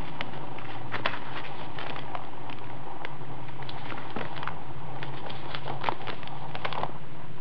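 Old paper pages of a book being handled and turned, giving short dry crackles and clicks, thickest around a page turn near the end, over a steady low hum.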